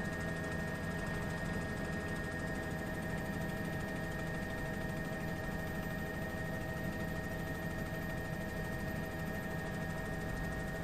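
Steady, unchanging engine drone of a news helicopter, with a constant high whine over a low hum.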